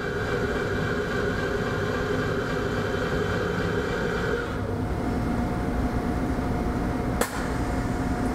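XSharp tool-sharpening grinder running with coolant spraying inside its shield as it recalibrates the wheel to the dressing stone. About halfway through, part of its whine drops away, leaving a steady hum, and there is a single click near the end.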